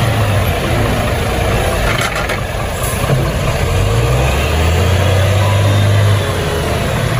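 Diesel engine of a large six-wheeled tanker truck running as it drives slowly past, its low note rising a little about four seconds in and easing back after about six.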